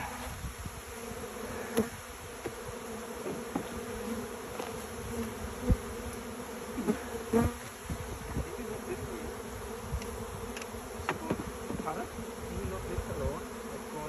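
Many honeybees flying around opened hives, a steady buzzing hum, with a few short knocks scattered through it.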